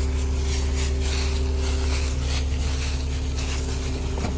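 An engine idling steadily, a constant low hum, with irregular faint rustling and clicking over it.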